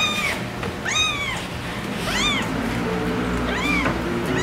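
A cat meowing repeatedly, four short calls about a second apart, each rising then falling in pitch.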